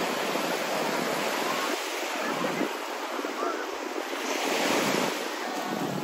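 Small waves breaking and washing up onto a sandy shore, a steady wash of surf that swells briefly about four and a half seconds in.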